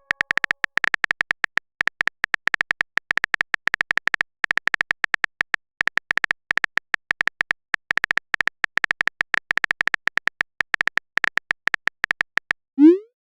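Phone keyboard typing sound effect: a fast, irregular run of short, same-pitched clicks, ending near the end with a short rising swoop like a message being sent.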